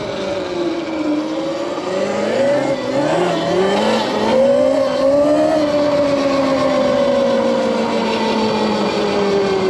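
Electric dirt bike motor and drivetrain whining under throttle. The pitch dips low, climbs steeply from about two seconds in to a peak at about five seconds, then slowly falls as the bike eases off.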